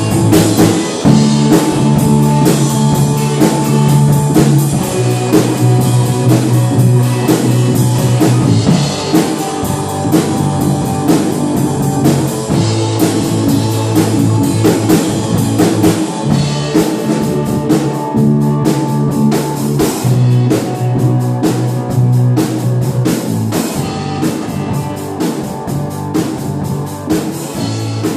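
Live rock band playing: electric guitar, acoustic-electric guitar, bass guitar and drum kit, with a steady drum beat and bass notes changing every second or two.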